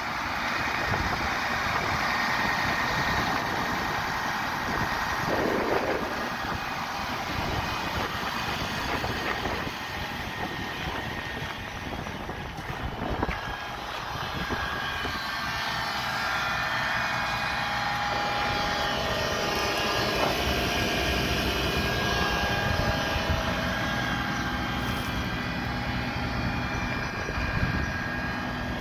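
Case IH Magnum 180 tractor's diesel engine idling steadily.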